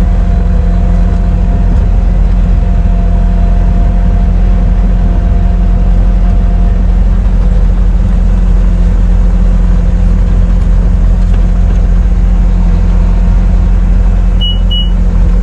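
A skid steer running steadily with a continuous low hum. There is a short high beep near the end.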